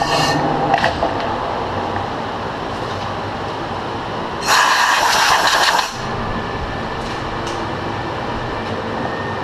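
Large engine lathe with its spindle and chuck running down after a boring pass in an electric motor end bell. About halfway through, a loud harsh rushing noise lasts about a second and a half as the chuck comes to a stop, followed by a steady machine hum.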